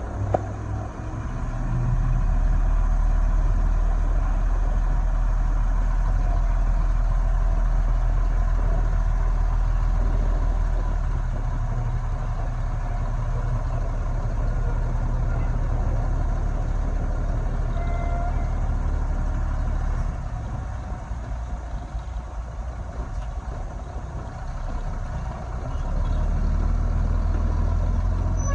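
Heavy diesel earthmoving machinery running, its engine a steady low drone that grows louder about two seconds in, eases off about two-thirds of the way through, and builds again near the end.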